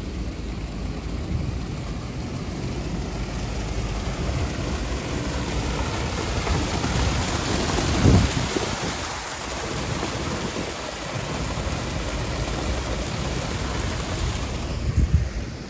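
Water pouring from a wall fountain's spouts and splashing into its basin, louder in the middle as it is approached, over a low rumble of wind buffeting the microphone with a couple of sharp thumps.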